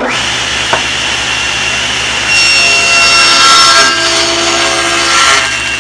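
SawStop table saw running, with its blade cutting through a scrap piece of wood from about two seconds in until a little past five seconds. The cut is louder than the free-running saw and carries a whine. It is a shallow test cut made to check the blade-height setting.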